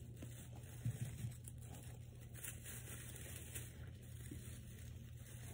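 Faint rustling and crinkling of artificial tree branches being handled, with two soft bumps about a second in, over a low steady hum.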